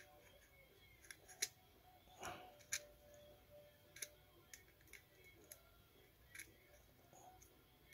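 Near silence broken by faint, sparse little clicks and ticks of a fine cleaning wire being worked into the spray hole of a Kubota D902 diesel injector nozzle, probing and clearing scale from the clogged hole.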